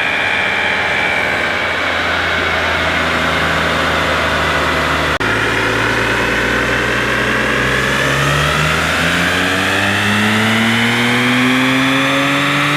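BMW N54 twin-turbo inline-six with a catless downpipe running on a chassis dyno, steady at first, then its engine speed climbing steadily from about eight seconds in as a pull builds, with a rising whine above the engine note.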